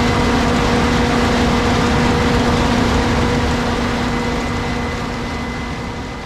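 Case IH 8250 combine running steadily: a loud machine drone with a constant hum and a few steady higher tones, fading gradually over the last few seconds.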